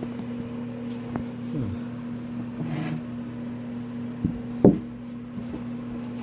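Hotpoint refrigerator's condenser fan motor running with a steady electrical hum, with a few light knocks and clicks, the sharpest about three quarters of the way in. The compressor stays silent and does not start, which the owner puts down to a faulty start relay.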